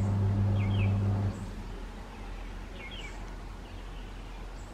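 A bird giving short high chirps, twice in quick pairs, over outdoor ambience. A steady low hum stops about a second in.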